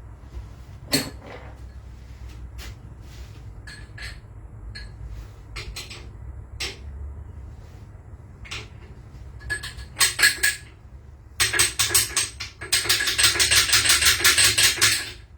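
Scattered metal clinks of tools and parts, then runs of rapid, even clicking from a hand socket ratchet, the longest lasting about two and a half seconds near the end.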